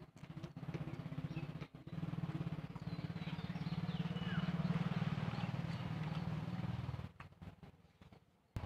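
A motor vehicle's engine passing by: a low, evenly pulsing engine note that grows to its loudest about halfway through and fades out about seven seconds in. A bird chirps faintly over it.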